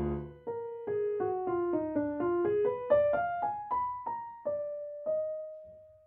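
Background music: a piano melody of single struck notes, about three a second, stepping down and then climbing, after a chord that fades away at the start. It ends on one held note that fades out near the end.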